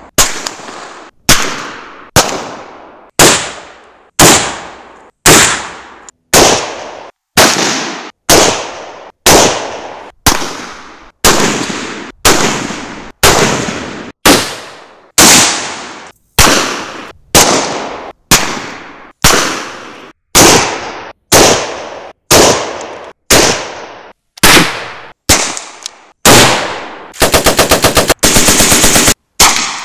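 Single gunshots from a succession of different WWI-era rifles and other firearms, about one a second, each cut short. Near the end a Lewis gun fires a rapid automatic burst lasting about two seconds.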